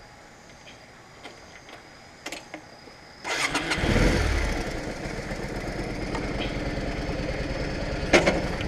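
A few light clicks, then about three seconds in the Yamaha DragStar Classic's V-twin engine cranks and fires, rising briefly before settling into a steady idle. A sharp clack stands out near the end.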